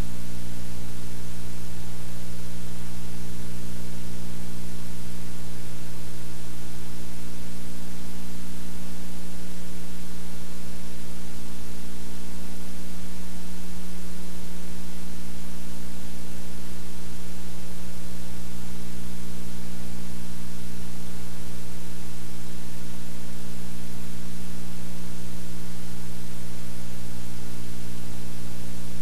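Steady electrical hum of several low tones under a constant hiss, unchanging throughout.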